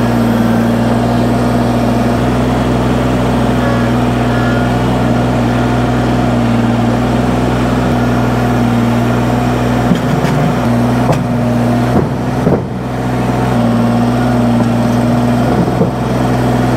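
Kubota compact tractor's diesel engine running steadily at a constant speed while it works the loader. A few short knocks come about two-thirds of the way through.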